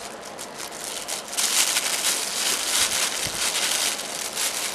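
Crinkling and rustling of packaging as a camera lens is unwrapped and taken out of its box, busiest from about a second and a half in until near the end.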